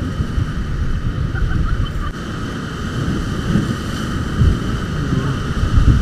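Whitewater rapids rushing around an inflatable raft, with wind buffeting the camera microphone.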